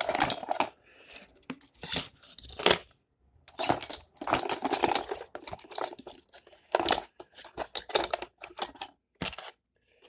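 Small metal deadbolt parts and screws clinking and rattling as they are handled and set down on a hard surface, in several short bursts.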